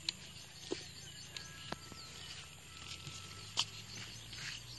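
Birds chirping over a faint low hum, broken by a few sharp knocks, the loudest about three and a half seconds in, as a hand tool works at the base of a stationary diesel engine that is not running.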